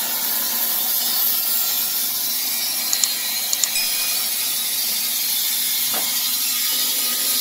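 Sawmill running with a steady high hiss, with a few short sharp ticks about three seconds in.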